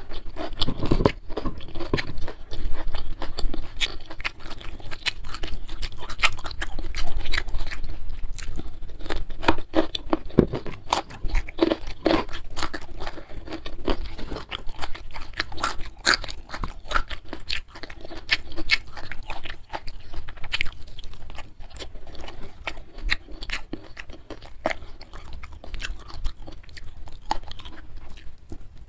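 Close-miked eating: chewing with frequent crisp crunches and clicks from biting raw vegetables and a mouthful of rice and spicy beef, in an irregular, continuous run.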